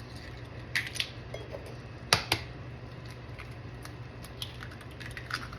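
Eggs cracked on a flat countertop: a few sharp taps of eggshell on the counter, in pairs about a second apart, followed by lighter shell clicks.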